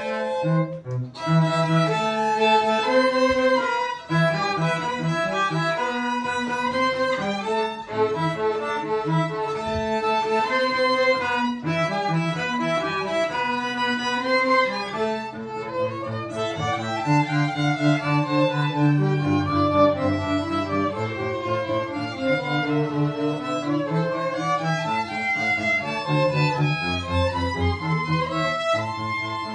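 String orchestra playing: violins carry the higher lines over cellos and basses, with short repeated notes in the low strings.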